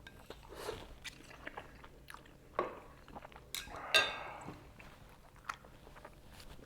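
Close-up mouth sounds of a person eating Buldak and Jjapaghetti instant noodles: wet chewing and small smacking clicks, with a sharp clink, like a utensil on the bowl, about four seconds in.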